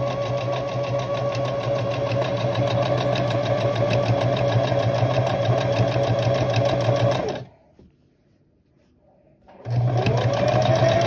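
Electric sewing machine running steadily as it stitches a seam in cloth. It stops about seven seconds in, and after about two seconds it starts again and picks up speed.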